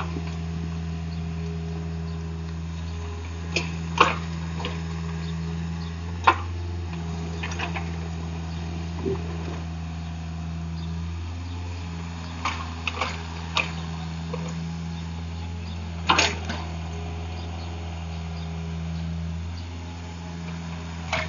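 Takeuchi TB150 mini excavator's diesel engine running steadily, with scattered sharp knocks and clanks, the loudest about 4, 6 and 16 seconds in.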